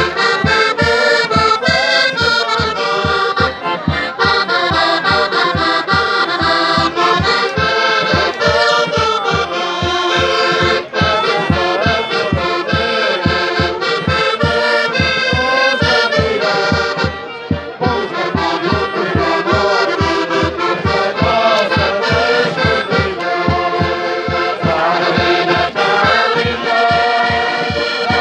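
Portuguese traditional folk music: a button accordion and melodicas playing a lively tune together over a steady low beat about three times a second.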